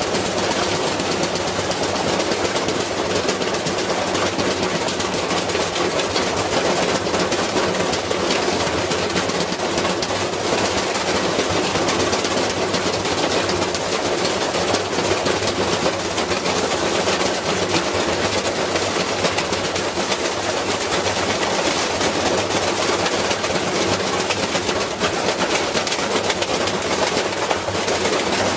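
Washing machine spinning with a brick loose in the drum: a continuous rapid hammering and rattling as the heavy, unbalanced load batters the drum and cabinet.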